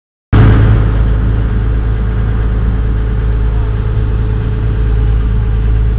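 Tour boat's engine running steadily: a loud, even low drone with a steady hum.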